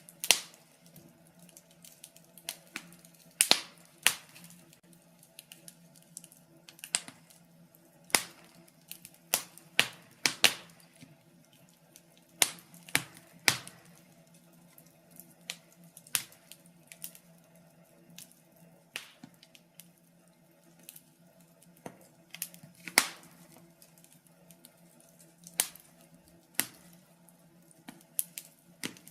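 Wood fire crackling in a fireplace: irregular sharp pops and snaps, a few every couple of seconds, over a faint steady hum.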